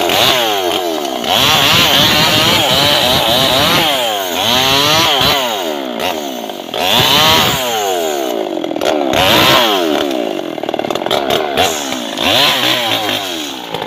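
Two-stroke chainsaw with a 22-inch bar cutting a sengon laut (albizia) log in several short bursts, its engine revving up and falling back again and again between cuts.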